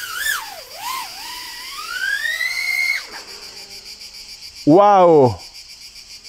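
Axisflying Manta 3.6-inch 6S FPV quadcopter's motors and propellers whining. The pitch dips, then climbs steadily for about two seconds as the throttle is pushed, and drops away sharply about three seconds in when the throttle is cut.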